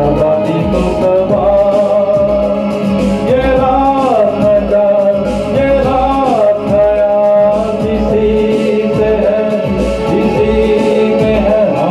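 A man singing a song into a microphone over a backing track with a steady beat, holding long notes that slide between pitches.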